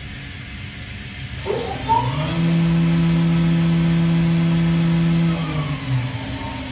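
Haas VF-3SS CNC vertical machining center's spindle spinning up with a rising whine about a second and a half in. It holds a steady hum for about three seconds, then winds down, over a steady hiss of coolant spray.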